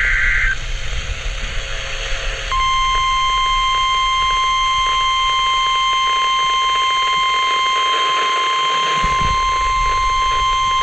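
NOAA Weather Radio emergency alert through radio hiss. A burst of digital header tones ends about half a second in, and about two and a half seconds in the steady 1050 Hz warning alarm tone starts and holds, announcing a severe thunderstorm warning.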